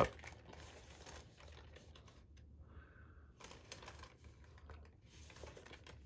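Faint rustling and clicking as a packed, zipped-up 1000D Cordura sling bag is handled and turned over, its zipper pulls and hardware tapping. It comes in two spells with a quieter pause in the middle.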